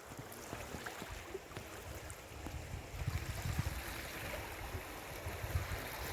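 Steady wash of sea waves on a beach with wind buffeting the microphone; the low, rumbling gusts grow stronger about halfway through.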